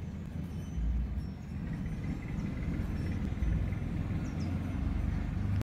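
Low rumbling background noise that swells three times, with a few faint short high chirps; it cuts off abruptly at the end.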